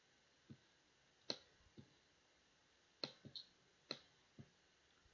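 Computer mouse button clicked about half a dozen times at uneven intervals, sharp clicks mixed with softer low knocks, against near silence.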